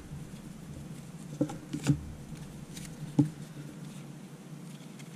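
Trading cards being handled and flipped through, with a few soft clicks and taps of card on card, the clearest about a second and a half, two seconds and just over three seconds in.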